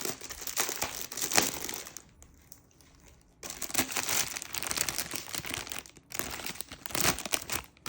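Plastic packaging of a diamond painting kit crinkling as it is handled and opened, with a short pause about two seconds in before the crinkling starts again.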